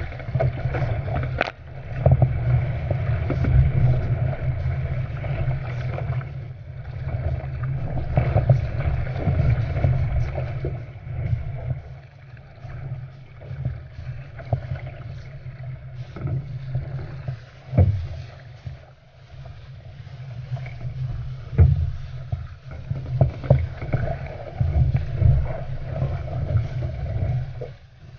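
Water rushing and splashing along an Epic V8 surfski's hull and paddle blade as it is paddled downwind over small swells, with wind rumbling on the microphone. The loudness surges and falls with the waves, and sharp splashes stand out now and then.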